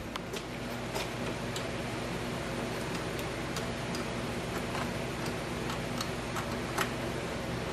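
Ratchet wrench clicking in short, irregular strokes as it loosens a carburetor mounting nut on a Tecumseh Snow King engine, over a steady low hum.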